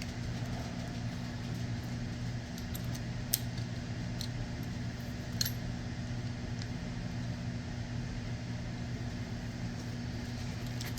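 A few light metallic clicks of .45 ACP pistol parts being handled and fitted during reassembly, the clearest about three and five seconds in, over a steady low hum.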